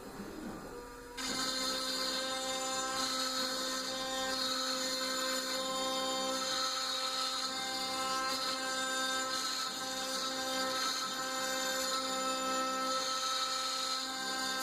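Tatatronic TT1210 Rhino CNC router running: a steady machine whine made of several held tones. It is quieter for about the first second, then comes back up sharply and holds steady.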